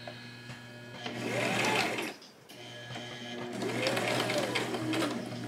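Electric home sewing machine stitching through black denim in two runs, the motor speeding up and slowing down each time, with a short pause about two seconds in.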